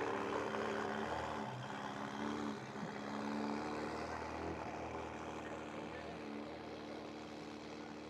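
Ferrari 360 Modena's V8 running at low revs as the car pulls slowly away, its steady engine note fading gradually.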